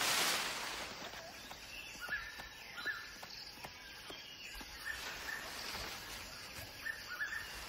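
Forest ambience: faint short bird chirps repeating every second or so over a soft hiss, after a brief rush of noise at the start.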